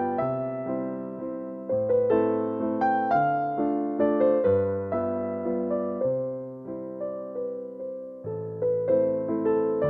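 Background music: a gentle piano melody, notes struck in an even rhythm and fading away.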